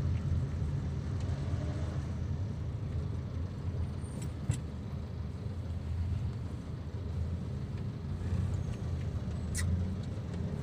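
Steady low rumble of a moving taxi heard from inside the cabin, engine and road noise together. A couple of short light clicks, one about midway and one near the end.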